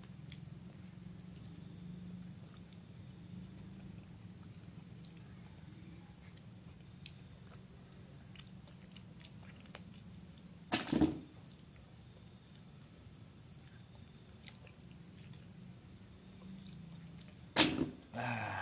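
Crickets chirping steadily over a low, even hum, with two loud sharp knocks: one a little past the middle and one near the end.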